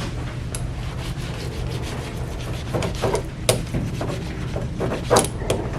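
Ribbed fiberglass consolidation roller rolled back and forth over resin-soaked fiberglass mat, a rapid run of fine ticks and rubbing as the ribs press air out of the laminate. A few sharper clicks stand out, and a steady low hum sits underneath.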